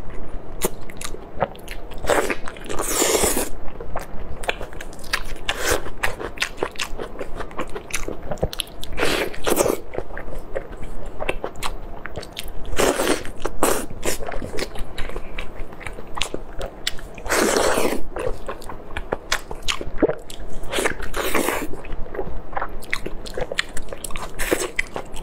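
Close-miked mouth sounds of eating chili-sauced braised meat: wet smacking, biting and chewing clicks throughout, with several longer, louder sucking sounds as the sauce and flesh are pulled off the piece.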